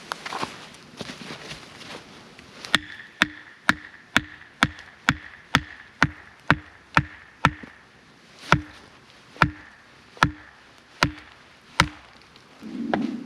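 Blade chopping into a wooden stake to sharpen its point: a run of sharp strokes starting about three seconds in, first about two a second and then slower, each with a brief ring.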